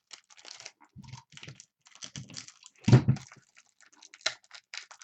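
Hands working at a tough, sealed trading-card pack wrapper: a quick run of small clicks and crinkles, with one louder thump about three seconds in.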